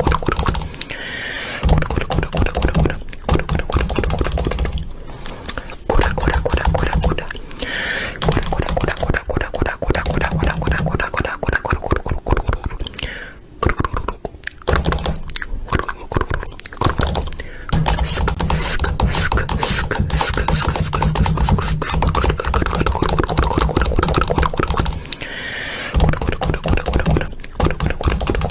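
Loud, rhythmic voice-like mouth sounds, close to beatboxing, over a steady deep low end.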